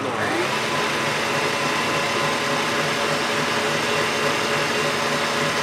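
Electric stand mixer running steadily at speed, its wire whisk beating a cake batter of butter, sugar and eggs in a stainless steel bowl: a steady motor whine with the whisk churning.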